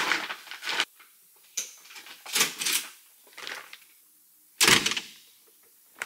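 Bags being picked up and handled, with a few short rustling bursts, then a door shutting with a thud about four and a half seconds in.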